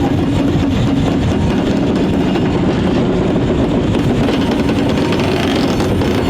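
Diesel-powered train running, a steady heavy rumble of locomotive engines and wheels on the rails, with a low steady drone over the first second.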